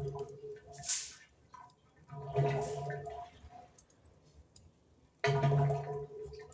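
Wood fire crackling in a fireplace, with a brief hiss about a second in. Soft held musical tones come and go in stretches of about a second, the loudest near the end.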